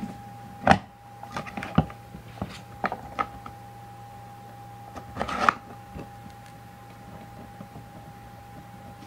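A series of light clicks and knocks from objects being handled on a desk, most in the first couple of seconds and a cluster about five seconds in, over a steady faint electrical whine and hum.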